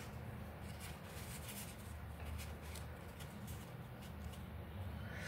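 Faint rustling and light taps of folded paper being pressed and fitted by hand, over a steady low hum.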